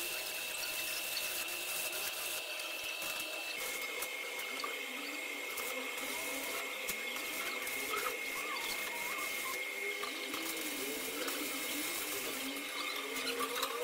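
Electric arc welding with a portable inverter welder: the arc crackles and sizzles steadily as a steel beam is welded in place.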